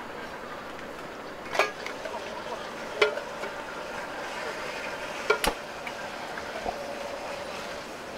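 Gas camping lantern being lit: three sharp clicks of its igniter a second or two apart, then a soft steady hiss as the mantle catches and burns.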